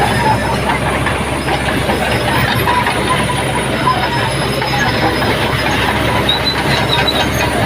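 Komatsu crawler bulldozer running steadily, its tracks clanking with short high squeals.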